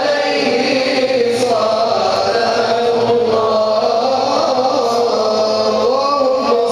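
Men chanting an Arabic nasheed in long, held melodic lines that glide up and down without a break.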